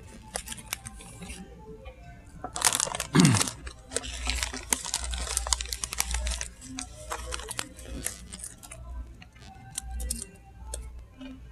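Foil snack-chip bags crinkling and rustling as they are handled and reached into close to the microphone, loudest in a sharp burst about three seconds in, with scattered small clicks and taps.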